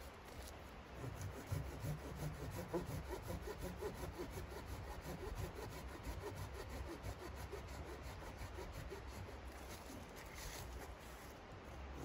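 Small hand pruning saw cutting into a tree stem, its teeth rasping through the wood in repeated back-and-forth strokes, easing off briefly near the end.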